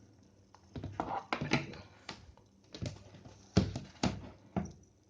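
Handling noise on a workbench: a series of sharp clicks and knocks, the loudest about three and a half seconds in.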